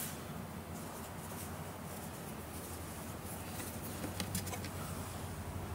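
Faint handling sounds: a few light taps and rustles, a small cluster of them about four seconds in, over a steady low hum.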